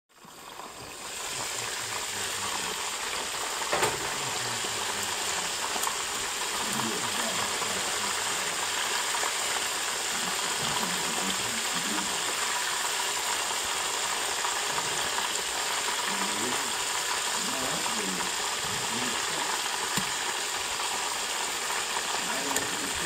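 Chicken pieces deep-frying in hot oil in a Presto electric skillet: a steady sizzle that swells in over the first second or two. A few sharp taps sound over it, the loudest about four seconds in.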